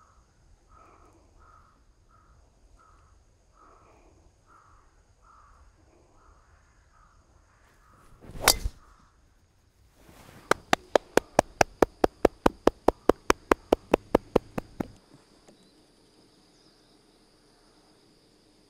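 A golf driver swung and striking a teed ball about eight and a half seconds in: a short rising whoosh ending in one sharp crack, the loudest sound here. Before it a bird calls over and over; after it comes a quick, even run of about twenty sharp clicks, roughly five a second, lasting some four seconds.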